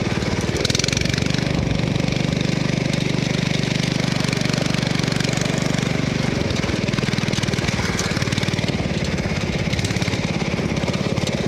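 Riding lawn mower engine running steadily with a rapid, even chugging beat, easing slightly a little past halfway.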